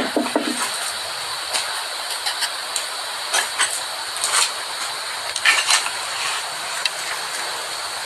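Steady static hiss with scattered short clicks and rustles over it.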